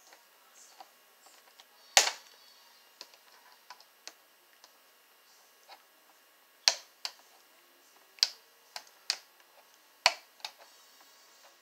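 Plastic packaging ties on a costume machete's backing card being cut with scissors and pried with a screwdriver: a run of sharp clicks and snaps, about seven loud ones spread through, the loudest about two seconds in, with small ticks between.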